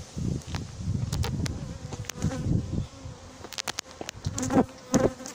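Agitated honeybees buzzing close around the microphone, each buzz rising and falling in pitch as a bee flies past; they are defensive after being sucked up in a bee vacuum. Low handling rumble and a few sharp knocks come from the vacuum being carried.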